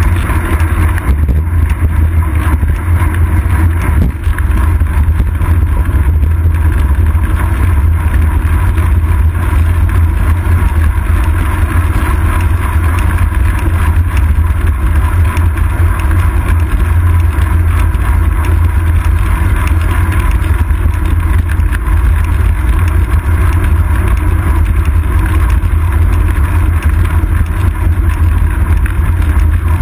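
Steady, loud wind rumble and road noise from riding a bicycle at speed, picked up by a seat-post-mounted GoPro Hero 2 in its housing: a deep, constant buffeting with a hiss over it, and no distinct events.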